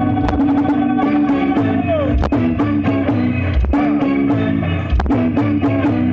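Loud forró music played on a paredão car sound system: a lead line with held and sliding notes over a steady drum beat.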